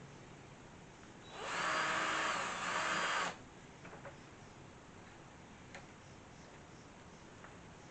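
Power drill running for about two seconds in two short bursts, its pitch rising and falling, as it backs a screw out of a doorknob. Faint small clicks follow.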